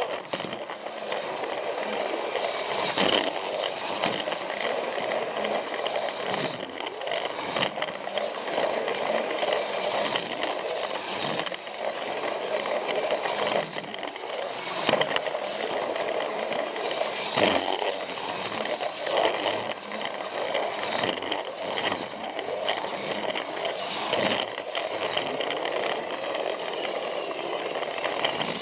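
Plarail toy train running along plastic track: a steady motor whine with the wheels rattling over the track and clicking now and then at the joints.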